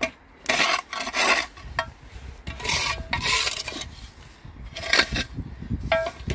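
A small hand scraper or trowel scraping dirt and dry grass out along the edge of a stone grave slab, in several separate rasping strokes.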